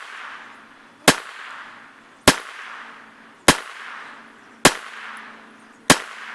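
Taurus TX22 .22 LR pistol firing Aguila Super Extra rounds, five evenly paced shots about a second and a quarter apart. Each crack is followed by a short echo that dies away.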